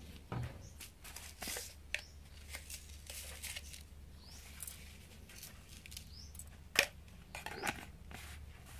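Light clicks and rustles as seasoning bottles and containers are handled and shaken over a metal bowl of fish, with one sharp click about seven seconds in, over a faint steady low hum.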